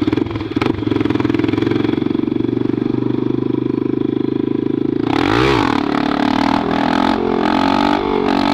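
Honda NX Falcon single-cylinder motorcycle engine running with its exhaust pipe removed, ridden at a steady speed. About five seconds in the throttle opens: it revs up and runs louder, accelerating.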